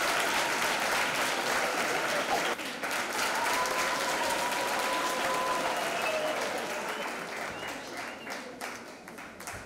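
Audience applauding, with a few voices calling out over the clapping; the applause dies away over the last few seconds.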